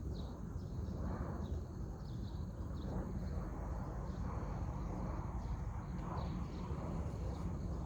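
Rural outdoor ambience: a steady low rumble with a thin, steady high insect drone and short high chirps repeating.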